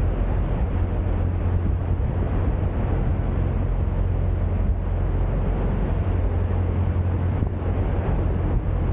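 A boat's engine running steadily with a low hum, under wind rushing over the microphone.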